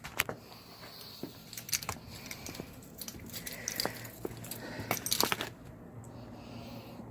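Irregular clicks and short metallic rattles of small hardware being handled, clustered most densely about five seconds in, over a faint steady low hum.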